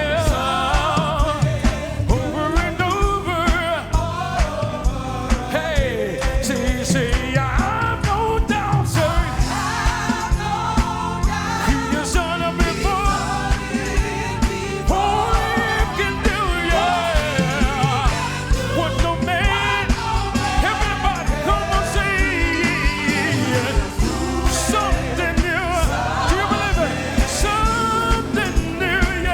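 Upbeat gospel praise music: singers over a band with a steady beat.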